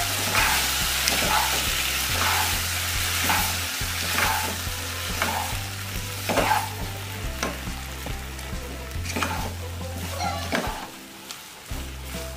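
Wooden spatula stirring boiled tapioca chunks through a sizzling coconut-oil tempering in a pot, with repeated scrapes and knocks against the pot about once or twice a second. The sizzle and stirring drop away briefly near the end.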